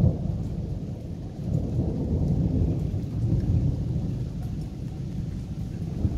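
Thunder rumbling low and continuously, swelling and easing in slow waves with no sharp crack.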